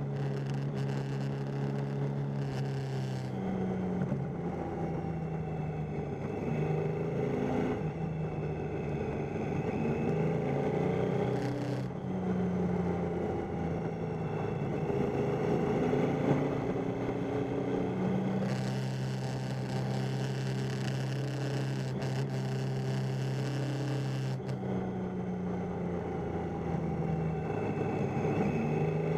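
Triumph Tiger 800's three-cylinder engine under way, its note holding and then shifting up and down every few seconds as the throttle is worked through a run of bends, with wind noise over it.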